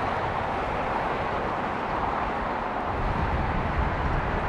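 Jet aircraft engines running: a steady rush with a low rumble that grows stronger about three seconds in.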